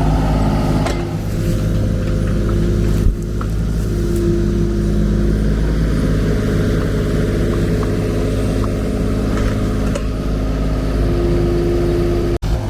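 Kubota U35-4 mini excavator's diesel engine running steadily while digging, with higher tones rising and falling over it and a few light clicks. The sound breaks off for an instant near the end.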